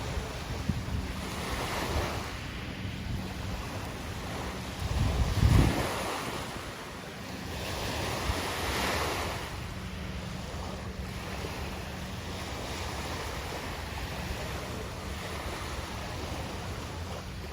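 Calm waves washing onto a shore, the wash swelling twice, about two seconds in and again near nine seconds. Around five seconds in, a gust of wind buffets the microphone with a brief low rumble, the loudest sound in the stretch.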